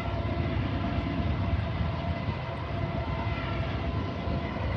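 Steady low rumble of an approaching Norfolk Southern mixed freight train, with no horn.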